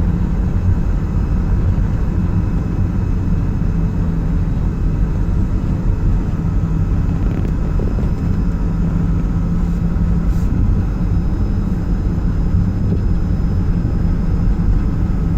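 Steady engine and road rumble heard from inside the cab of a moving van.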